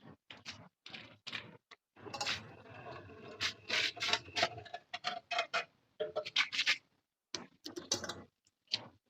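An irregular run of short scrapes, rubs and knocks, busiest in the middle with a brief pause about seven seconds in.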